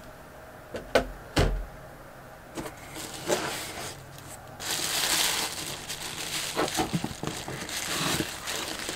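Two sharp knocks about a second in. From about the middle on, packaging rustles and crinkles as mail is handled.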